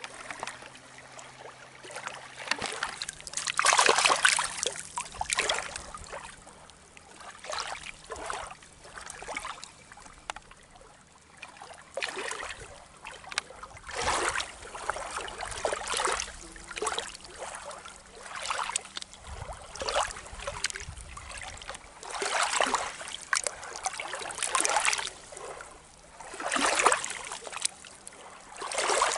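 Small waves of lake water lapping and splashing against a rocky shore, a swell about every two seconds.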